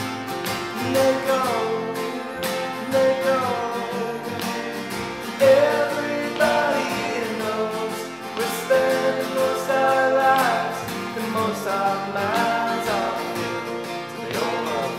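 Acoustic band playing: two acoustic guitars strummed and picked over a plucked upright bass, with a male voice singing a melody.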